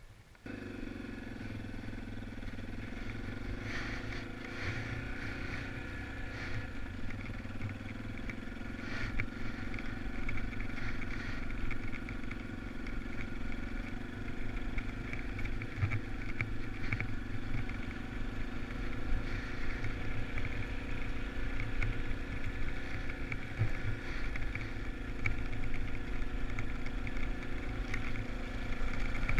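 Motorcycle engine running while riding at a slow, fairly steady speed, starting abruptly about half a second in, with a low rumble underneath.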